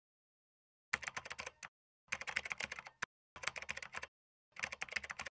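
Typing sound effect: four quick runs of key clicks, each under a second long, with short pauses between them, as a line of on-screen text is typed out.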